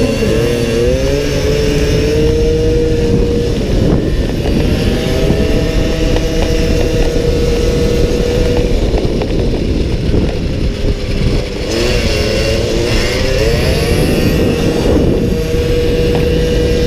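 Small-displacement racing motorcycle engine heard onboard at race speed, holding a steady high-revving note on the straights. Three times the note sags and climbs back, near the start, about four seconds in, and again about twelve seconds in. Wind rushes over the microphone throughout.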